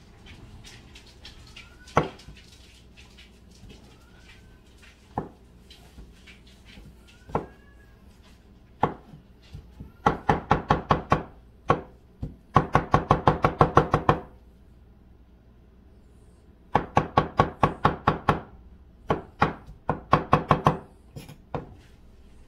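Kitchen knife chopping mushrooms on a plastic cutting board. A few single knocks come first, then four quick runs of rapid strokes in the second half, about six strokes a second.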